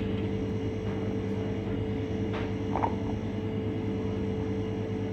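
A steady low mechanical hum holds an even pitch throughout, with a faint click a little before the middle.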